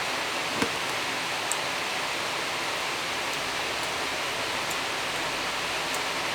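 Steady, even hiss of background noise with a few faint short clicks, the first about half a second in.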